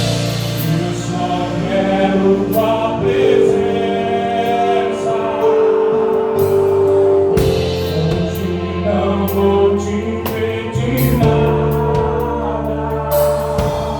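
Live gospel band playing: voices singing held notes over bass guitar, with drum and cymbal hits.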